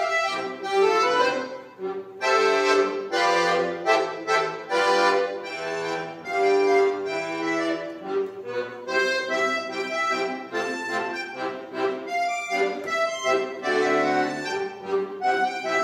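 Piano accordion playing a tune, quick-changing melody notes on the keyboard over lower bass notes, with a brief drop in loudness near two seconds in.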